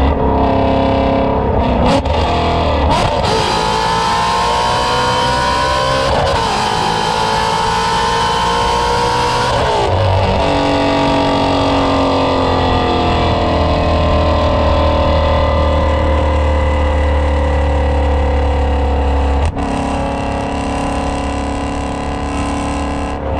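Ford Shelby GT350's 5.2-litre flat-plane-crank V8 breathing through American Racing headers and an aftermarket exhaust, accelerating hard. Its pitch climbs and drops back at upshifts about three, six and ten seconds in, then slowly falls while cruising, and the note drops suddenly near the end.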